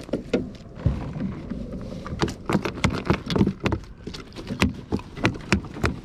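Irregular knocks and clicks of a landing net and a freshly caught smallmouth bass flopping in it, bumping against a plastic kayak deck and the gear on it. The knocks come quickly from about two seconds in.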